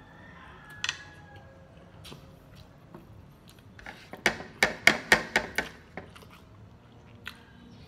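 A quick run of sharp knocks or clicks, about eight in a second and a half, near the middle, with a single click about a second in.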